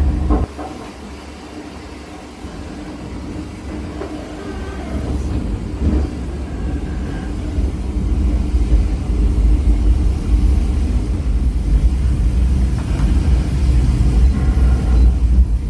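Bernina Express train running on the metre-gauge Bernina line, heard from inside a carriage as a steady low rumble. It drops sharply about half a second in, then builds back up over the next several seconds.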